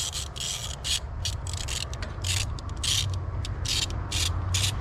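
Hand ratchet wrench worked back and forth on a fastener during timing belt reassembly, giving short rasping strokes several times a second, over a steady low hum.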